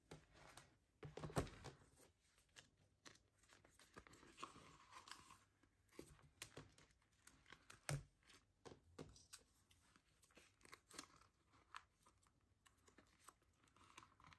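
Faint rustling and crinkling of clear plastic zip pouches in a cash binder as paper banknotes are handled, with scattered soft clicks and knocks; the loudest come about a second and a half in and about eight seconds in.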